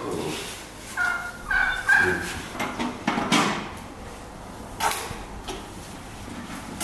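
Domestic fowl calling, three short high calls in quick succession, followed by a couple of sharp knocks.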